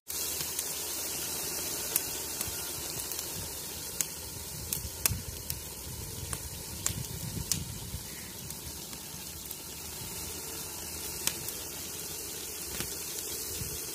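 Sliced onions frying in oil in a large aluminium pot: a steady sizzle with scattered sharp pops.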